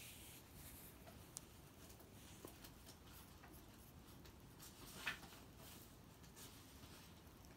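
Faint scratchy rustles and small clicks of fingernails picking at peeling sunburnt skin, the loudest about five seconds in.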